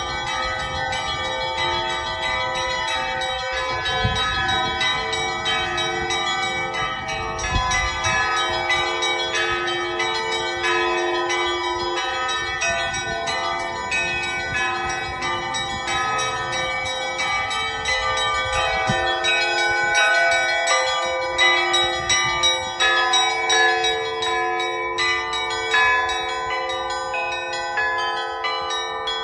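Russian Orthodox church bells being rung: many bells of different pitches struck in quick succession, their ringing overlapping into a continuous peal. The strikes grow louder and more distinct in the second half.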